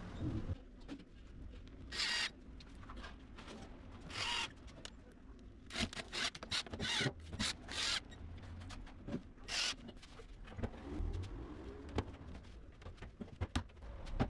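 Cordless drill-driver driving screws through plastic drawer brackets into an MDF panel, in a string of short spurts each under a second long. Light clicks and knocks of the parts being handled fall between the spurts.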